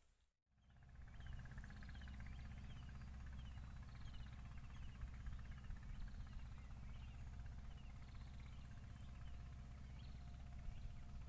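Rural outdoor ambience: birds chirping in many short falling notes, a steady high-pitched insect whine, and a low steady rumble. It starts after a moment of silence right at the beginning.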